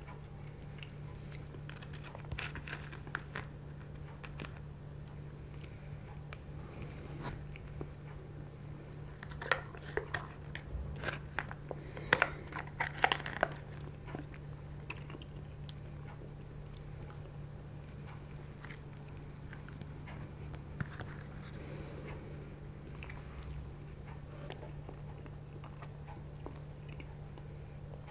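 Eating sounds of peanut butter chocolate lava cake being chewed, with a plastic spoon clicking and scraping in its foil cup in a cluster of sharp clicks near the middle. A steady low hum runs underneath.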